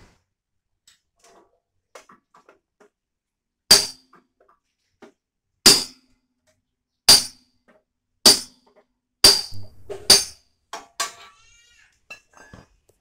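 Panel beating on a crash-bent steel car body: seven sharp, ringing hammer blows on metal, about a second apart, while the front fender is held under tension by a chain hoist.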